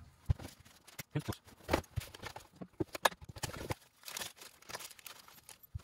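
Irregular light knocks and clicks of a piston and small parts being handled and set down on a workbench, with rustling of a plastic bag and a shop towel.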